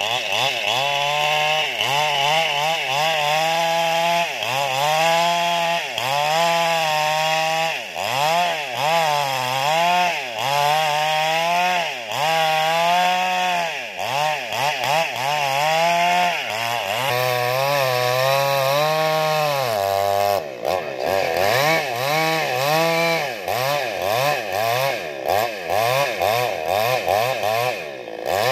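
Two-stroke chainsaw cutting into the thick trunk of a dead, century-old tamarind tree near its base. The engine pitch drops and rises again over and over as the chain bogs in the wood and frees up, and it eases off briefly about two-thirds of the way through.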